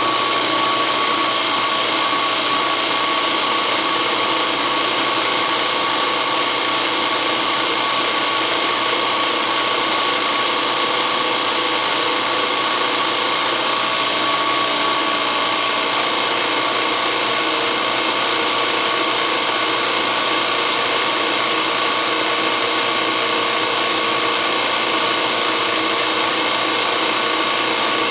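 Electric drill boring holes in steel channel iron, its motor running with a steady whine and no pauses.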